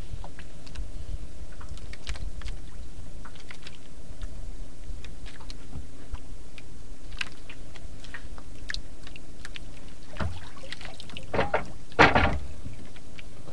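Water lapping against the hull of a small wooden outrigger boat, over a steady low wind rumble, with scattered small clicks. Two louder sloshes of water come near the end.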